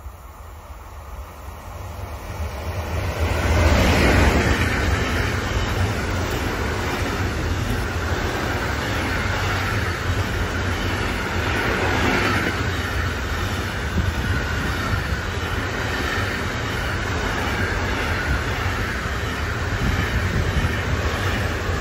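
Intermodal freight train approaching and passing close by. The sound builds to its loudest about four seconds in as the head of the train goes by, then settles into a steady rumble of wagons loaded with lorry trailers rolling past on the rails.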